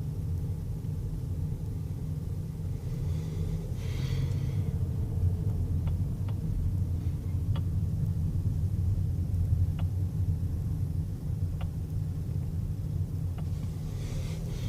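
Faint, irregular clicks from the steering wheel of a 2012 Chevrolet Cruze Eco, about six over several seconds, heard only when the wheel is turned left, over the steady low rumble of the running car. There is a brief hiss near the start and another near the end.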